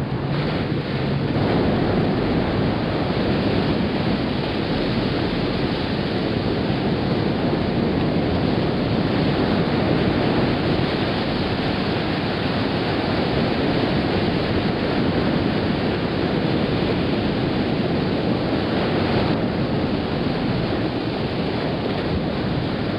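Ocean surf breaking on a sandy shore, mixed with wind blowing across the microphone: a steady, dense rush of noise. A low steady hum fades out in the first second or so.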